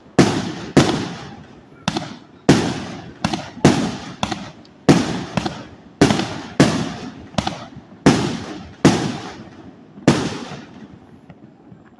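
A 450-shot fireworks display board firing one shot after another, each a sharp bang with a fading tail, about one to two shots a second. The last bang comes about ten seconds in, and its tail fades out.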